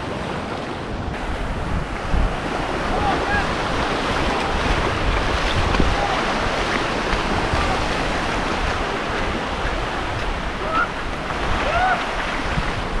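Surf breaking and washing up the beach, with wind buffeting the microphone: a steady rushing noise, with a few faint short chirps over it.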